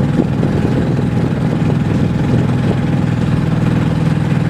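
Boat engine idling steadily, with a fast, even low throb.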